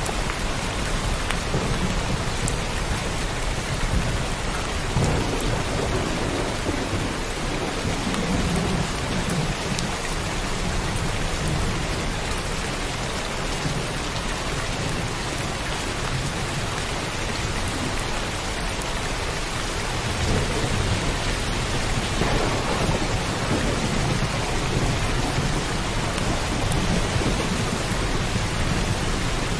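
Heavy rain pouring steadily, with thunder rumbling twice, about five seconds in and again from about twenty seconds in.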